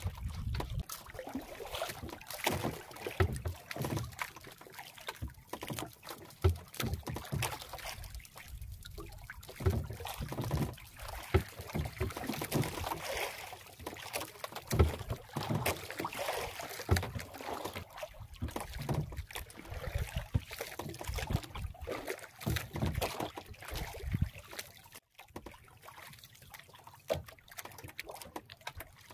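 Water splashing and lapping against the hull of a small wooden outrigger canoe as it is paddled, with irregular splashes and knocks and no engine.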